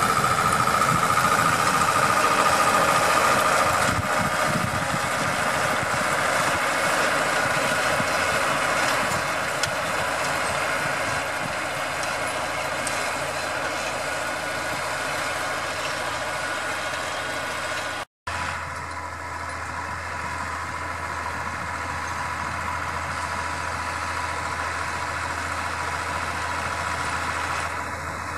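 New Holland TS115 tractor engine running steadily under load while it pulls a power harrow through the soil, with a steady whine in the first few seconds. The sound drops out for an instant about 18 seconds in, then the tractor carries on, a little quieter.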